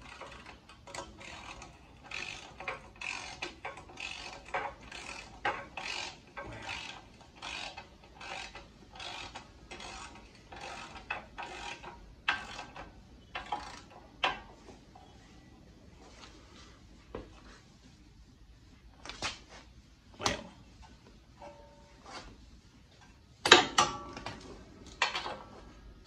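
A socket ratchet clicking as it swings back and forth, running down and snugging up a steering-arm and caliper-bracket bolt on a disc-brake spindle, at about two strokes a second. The ratcheting thins out about halfway through, and a loud metal knock comes near the end.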